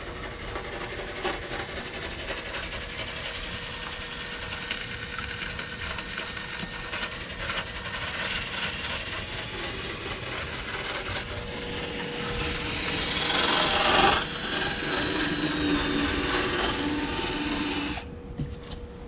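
Steady rasping and scraping as rust is cleaned off the rusted windshield frame of a box Chevy before the new glass is set, stopping shortly before the end.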